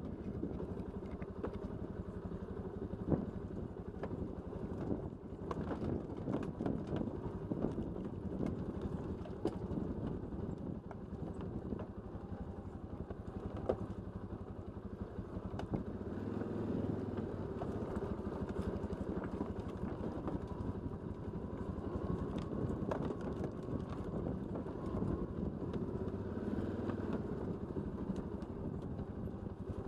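ATV engine running steadily while riding down a rough dirt track, with frequent small knocks and rattles from the bumpy ground; a sharper knock comes about three seconds in.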